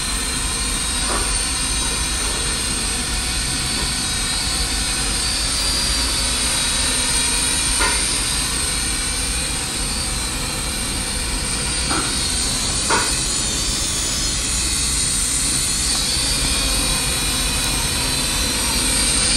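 Small toy quadcopter (Nova drone) flying, its four propellers giving a steady whirring hiss with a faint, wavering high motor whine.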